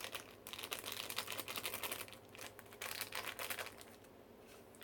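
Rapid crinkling and light clicking of a small candy powder packet and a thin plastic tray being handled, in two spells with a short pause between them.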